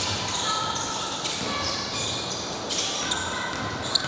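Basketball dribbling on a hardwood gym floor amid players' footsteps and occasional shouts, echoing in a large hall.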